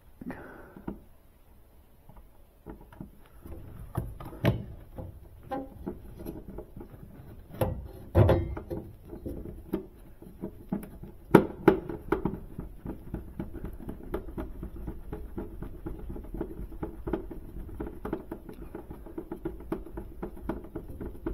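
Clicks, knocks and rattles of hand tools and metal parts being worked by hand, with louder knocks about four, eight and eleven seconds in, and a fast, steady run of small ticks through the second half.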